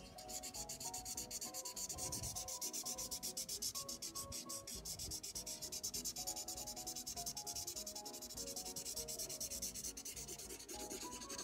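Pink magic marker pen scribbling back and forth fast over a magic-pen colouring page, a steady scratchy rubbing of pen tip on paper.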